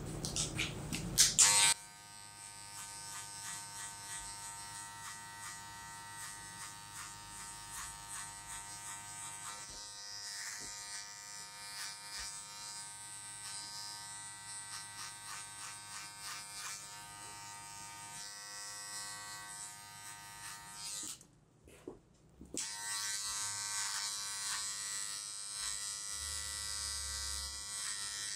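Electric hair trimmer buzzing steadily as it trims around the ear, sideburn and neckline, switched on with a few clicks near the start. It cuts out for about a second near the end, then runs again.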